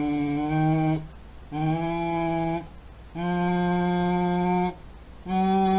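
A man voicing through a drinking straw in tube phonation: four held, steady hummed tones at a low pitch, each about a second or a second and a half long, with short breaks between. He varies the strength of the voicing.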